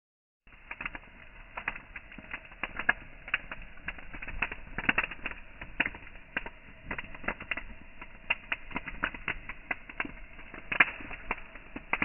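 Bonfire of wood and dry leafy branches burning, crackling and popping irregularly several times a second over a steady low rumble.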